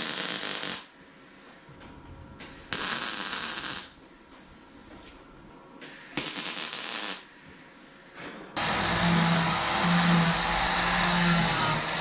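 Wire-feed welder laying three short tack welds on car body sheet metal, each a crackling sizzle lasting about a second with pauses between. About two-thirds in, an angle grinder starts running loud and steady, cleaning up the welds.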